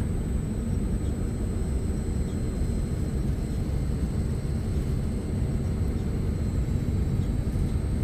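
Steady low rumble and hum of an LG Multi V outdoor unit running while its first inverter compressor tries to start and draws 68 amps, a sign that the compressor is locked up.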